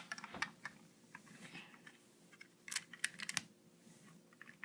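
Lego plastic pieces clicking and knocking as a part of a small Lego vending machine is handled and pushed back into place, in a few faint scattered clicks with a quick cluster near three seconds in.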